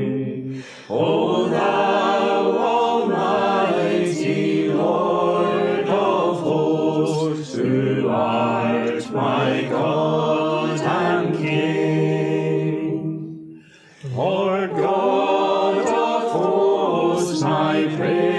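Congregation singing a metrical psalm unaccompanied, in slow held notes, with short breaks between lines about a second in and again near the end.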